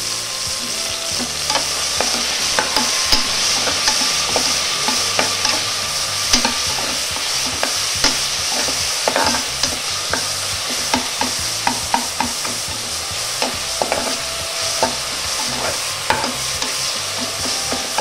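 Chopped tomatoes and onions frying in hot oil in an open pressure cooker, a steady sizzle while they are stirred, with frequent short knocks and scrapes of the spoon against the pot. They are being sautéed until the tomatoes soften.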